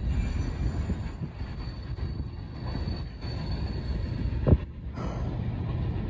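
Freight cars of a Norfolk Southern manifest train rolling past with a steady low rumble, and a faint high wheel squeal over the first few seconds. One sharp thump about four and a half seconds in.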